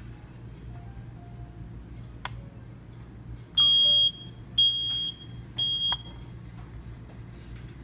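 Smoke detector sounding three loud, steady high-pitched beeps of about half a second each, one second apart: the three-beep alarm pattern. A single click comes about a second before the beeps.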